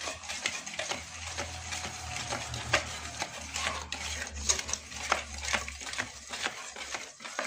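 Wire whisk stirring thick cake batter in a stainless steel bowl, with rapid, irregular clicks and scrapes of the wires against the metal. The flour is being mixed into creamed butter, sugar and eggs.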